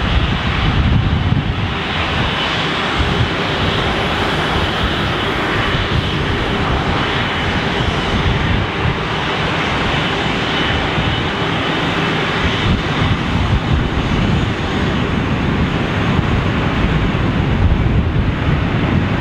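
Airbus A330's two Rolls-Royce Trent 772B turbofans running at taxi power: a steady jet rumble and hiss with a faint high whine.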